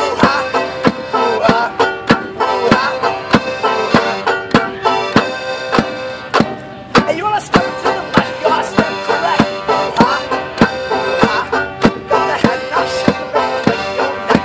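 Piano accordion and banjo playing a folk tune together: held accordion chords under a banjo strummed in a steady beat of about two to three strokes a second.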